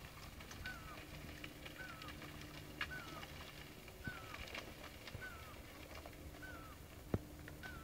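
A bird calls again and again, a short whistled note that dips and hooks downward, about once a second, over a faint low hum. There is one sharp click near the end.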